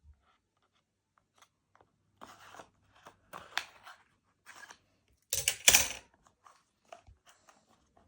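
Large scissors cutting at packaging: several short snipping and crinkling sounds, the loudest a crunchy burst about five and a half seconds in.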